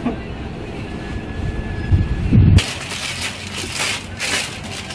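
A few dull thuds, then a dense crinkling rustle of material being handled from about two and a half seconds in.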